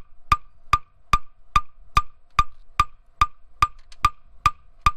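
Hammer tapping steadily on a nut welded to a twisted-off stud, about two and a half blows a second, each blow a sharp metallic knock with a brief ring. The tapping jars the rusted stud to help free it from the water jacket.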